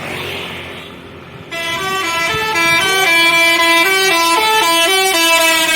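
Tourist bus's 'telolet basuri' multi-tone musical air horn playing a tune of stepping notes. It comes in loud about a second and a half in.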